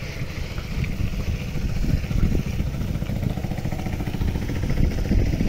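Motorcycle engine running at low speed while riding along a dirt street, a steady low rumble.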